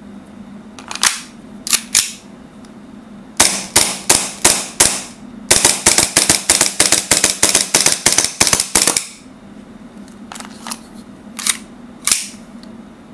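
Tokyo Marui Hi-Capa 1911 gas blowback airsoft pistol firing. About five spaced shots come first, then a fast string of about twenty shots at roughly six a second, each a sharp crack of gas and the cycling slide. A few metal clicks come before the shots as the magazine is seated, and a few more after them as the pistol is handled, over a steady low hum.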